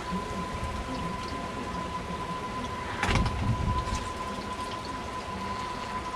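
Heavy rain falling steadily during a thunderstorm. About three seconds in, a low rumble swells for about a second, louder than the rain. A faint steady high tone runs underneath.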